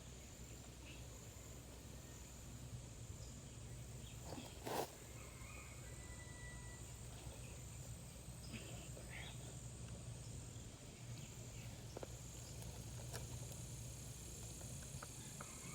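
Insects droning steadily at a high pitch in the background, with a single sharp knock a little under five seconds in.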